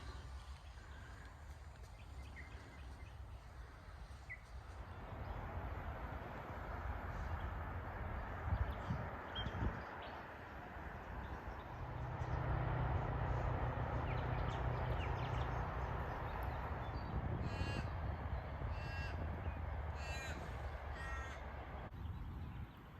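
A crow cawing in a short series of about four harsh calls near the end, with fainter calls earlier, over a steady low rumble.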